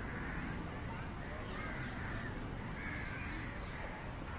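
Crows cawing over and over, harsh calls coming every second or so over a steady background hum.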